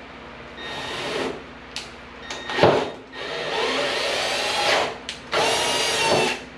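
Power drill run in three bursts, the longest nearly two seconds, boring out a hole for a hood latch pin. A single sharp knock falls between the first and second bursts.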